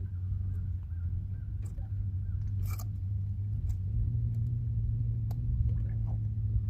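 Steady low motor hum on a bass boat, with a few light clicks and knocks and a short rattle about three seconds in.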